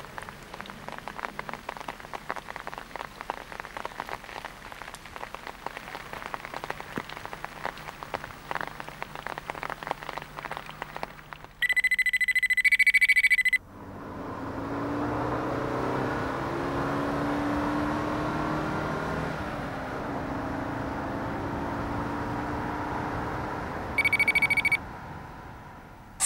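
Steady rain pattering on a wet stone street. About twelve seconds in, a loud flat electronic tone sounds for about two seconds, followed by a softer swelling electronic whoosh, with a second short electronic tone near the end.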